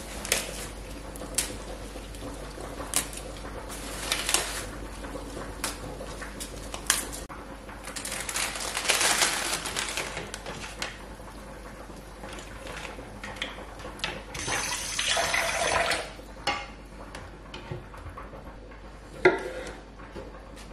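Salad being prepared by hand: lettuce and rocket leaves torn and dropped into a bowl with scattered clicks and rustles, and a plastic salad bag crinkled. Near the end a kitchen knife knocks on a wooden cutting board as cherry tomatoes are sliced.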